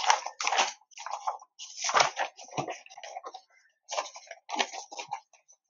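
Irregular rustling, clicks and a few dull knocks of things being handled close to the microphone, a dozen or so short bursts with gaps between them.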